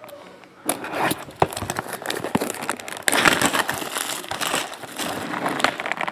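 Clear plastic shrink-wrap being pulled off a sealed cardboard box of trading cards and crinkling in the hand: a dense crackle of small clicks that starts just under a second in and grows louder about three seconds in.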